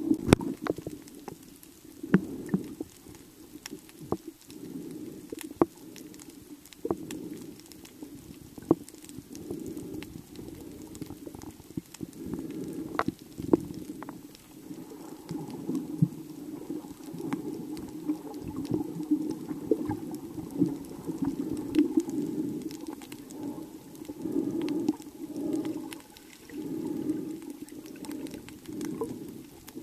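Underwater ambience heard from a camera beneath the sea surface: a muffled, swelling and fading rumble of moving water, with scattered sharp clicks.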